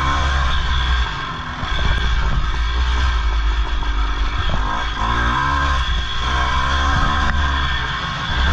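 Two-stroke single-cylinder motocross engine of a 1983 Honda CR480R, ridden hard: the engine revs rise and fall repeatedly as the throttle is worked, with short roll-offs about a second in and again near the end.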